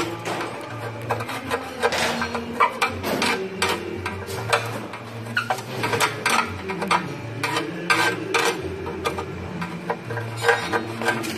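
A steel hand tool scraping and chipping flux slag off a gasless flux-core weld bead on a steel channel, giving irregular metallic scrapes and sharp clicks.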